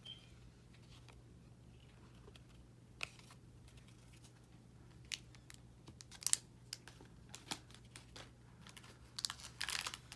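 Hockey trading cards being handled and shuffled through: scattered faint clicks and taps, with a short burst of rustling near the end, over a faint low hum.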